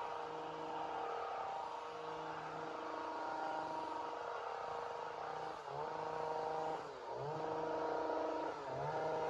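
Two-stroke chainsaw running steadily at high revs, its pitch dipping briefly and recovering three times in the second half.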